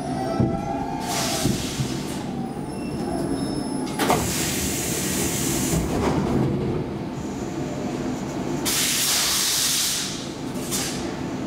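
Stockholm Metro C14 train coming to a stop at a platform: a wheel squeal dies away in the first second over the low rumble of the carriage. Then come repeated bursts of compressed-air hissing, with a sharp knock about four seconds in and the loudest hiss a little past the middle.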